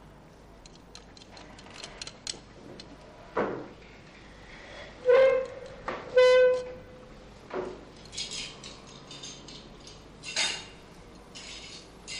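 Dishes and cutlery clinking in a dining room, with scattered small clicks. About five seconds in come two short pitched tones a second apart, the loudest sounds.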